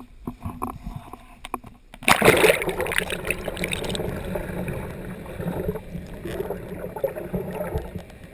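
Water noise at a GoPro dive housing on a pole. For about two seconds there are a few light knocks above the surface. Then the housing plunges underwater with a loud splash, and a steady underwater rushing and gurgling of water over the housing follows.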